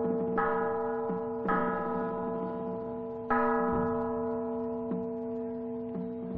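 Bells struck slowly, each strike ringing on and fading over a sustained low tone. The three loudest strikes fall in the first three and a half seconds, with softer strikes after.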